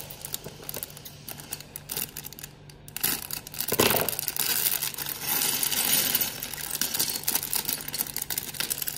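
A plastic bag of small Lego bricks being opened and handled: the bag crinkles while the hard plastic pieces click and clatter against each other. It gets louder about three seconds in.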